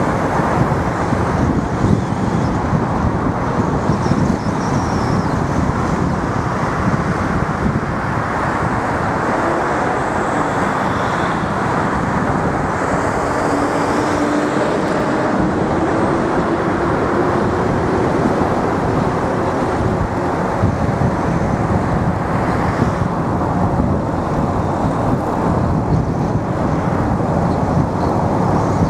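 Steady road noise of a car being driven through town: continuous tyre and engine noise, with a faint rising whine about halfway through.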